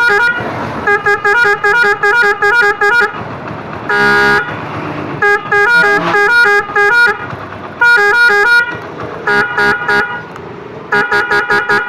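Roots multi-tone horn sounding its tune patterns: several bursts of rapid short beeps, about seven a second, with one longer steady blast about four seconds in.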